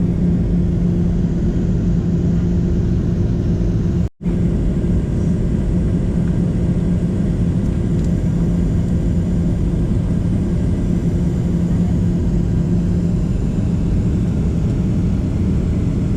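Steady cabin noise of a Boeing 737-700 in flight on approach: the rumble of the CFM56 engines and airflow, with a constant low hum. The sound drops out completely for a split second about four seconds in.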